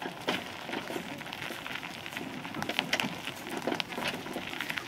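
Steam traction engine moving slowly over gravel, its iron wheels crunching and crackling on the stones with irregular sharp clicks.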